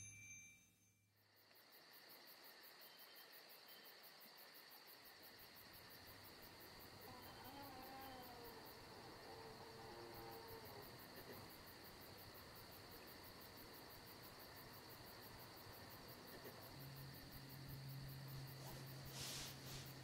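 Faint night ambience of crickets chirping, a steady high trill with a fast even pulse. A low steady hum comes in near the end.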